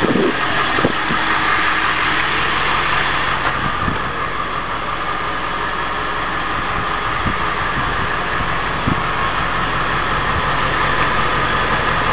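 Ambulance engine idling steadily, with a few light knocks.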